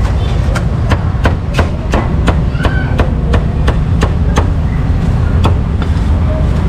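A cleaver chopping crispy pork belly on a round wooden chopping board, with about three sharp chops a second that thin out in the last couple of seconds. A steady low rumble runs underneath.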